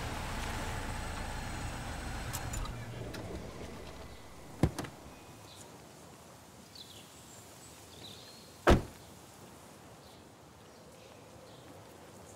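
Background music fading out, then two sharp thumps about four seconds apart, the second louder, over a quiet background with a few faint high chirps.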